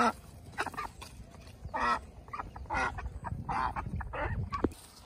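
Call ducks quacking loudly, a run of about six short quacks roughly once a second.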